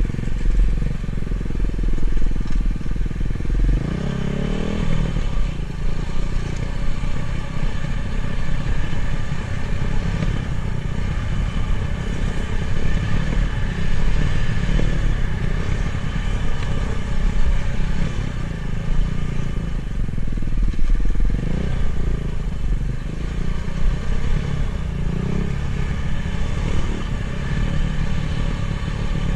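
Dirt bike engine running while the bike rides along a trail, the revs rising and falling with the throttle, with a sharp rise about four seconds in and more near the last third.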